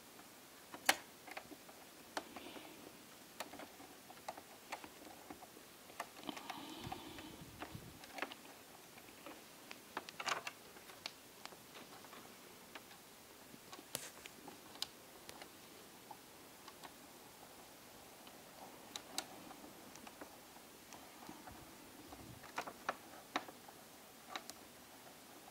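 Scattered small clicks and taps of a precision screwdriver on screws and laptop parts as hinge screws are worked loose, at irregular intervals, with a brief stretch of soft rustling about a third of the way in.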